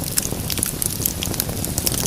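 Wood fire crackling: irregular small pops and snaps over a steady low rumble of the flames.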